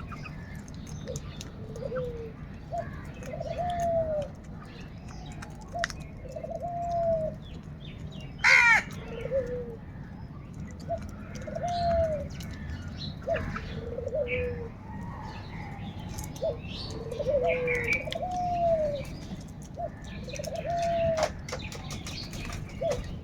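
A dove cooing over and over, each coo a short lead-in note followed by a longer arched note, repeating every second or two. One louder, harsher bird call cuts in once about eight seconds in, with faint chirps and small clicks in the background.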